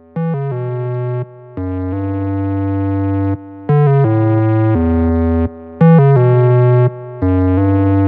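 Background song with held chords that change every second or two, broken by a few short drops in loudness.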